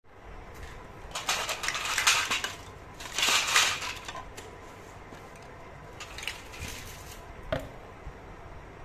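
Plastic toy cut-fruit pieces clattering against a stainless steel bowl in two noisy bouts, followed by a few lighter knocks.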